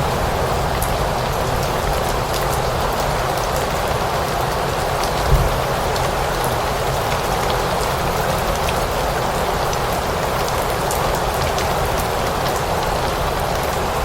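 Steady rain falling, with scattered single drops ticking on a surface and one brief low thump about five seconds in.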